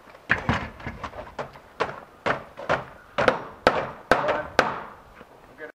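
A series of sharp knocks, about two a second, on the new French door's frame as it is worked into place in the opening.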